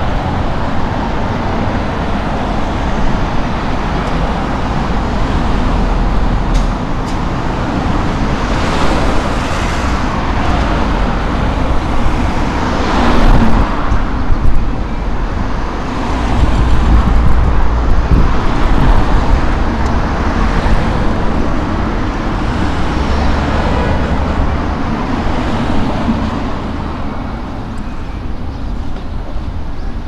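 Road traffic on a city street: cars passing one after another, each swelling and fading away.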